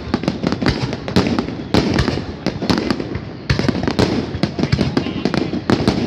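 Aerial firework shells launching and bursting in rapid succession: a dense, unbroken run of sharp bangs and crackles, several a second.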